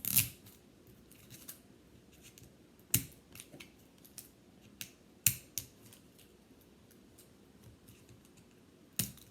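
Hands working at the plastic zipper tear strip of a toy's wrapping that won't unzip. A few sharp plastic snaps and clicks come two to three seconds apart, with fainter crackles between.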